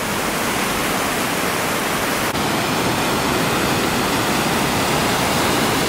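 Mountain river rushing over rocks in whitewater rapids: a steady, even hiss of water.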